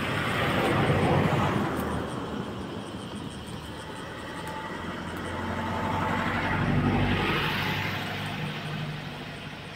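Two motor vehicles passing on the road, each rising and fading with engine and tyre noise: the first loudest about a second in, the second around seven seconds.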